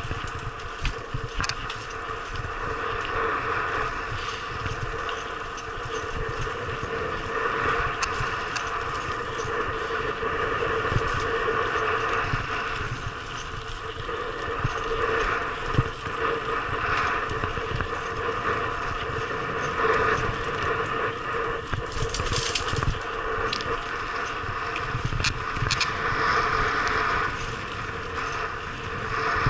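Mountain bike rolling fast downhill on a gravel and dirt track, heard from a helmet-mounted action camera: a continuous rushing tyre noise on loose stones, with scattered knocks and rattles as the bike hits bumps.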